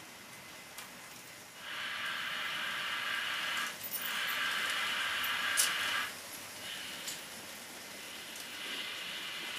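HO-scale model train running on the layout's track: a rushing hum of motor and wheels that swells about a second and a half in, fades around six seconds and comes back more quietly near the end, with a few sharp clicks of wheels over the rails.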